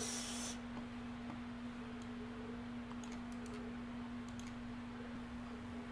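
Faint, scattered clicks of a computer keyboard being typed on, over a steady low hum.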